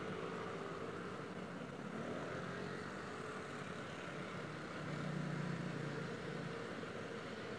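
City street traffic: a steady hum of passing vehicles, swelling a little around five seconds in as something louder goes by.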